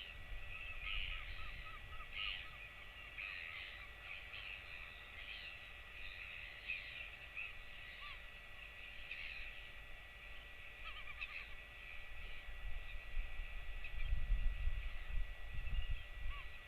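Birds calling over and over in the background, with a quick run of short, repeated chirps early on and a few more later. A low rumble comes up near the end.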